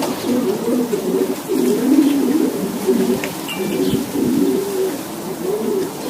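Several racing pigeons cooing together, their low, wavering coos overlapping without a break.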